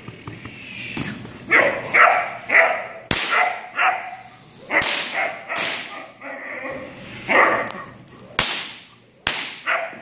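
Young sable German Shepherd barking in repeated short bouts during protection work, showing its drive. Two sharp cracks stand out among the barks, about three seconds in and again about eight and a half seconds in.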